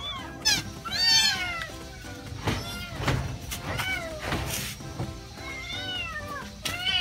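Kittens meowing repeatedly: short, high mews that rise and fall in pitch, one after another, the loudest about a second in.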